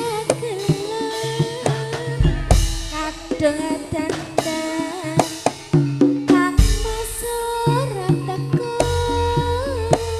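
Live Javanese tayub band music: a held melody line with small pitch bends over repeated low notes, with frequent sharp drum strokes. Deep bass notes come in about two seconds in, again about six and a half seconds in, and near the end.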